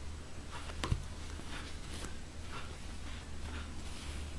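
Faint rustling of yarn and soft clicks from a metal crochet hook as stitches are worked, over a steady low hum.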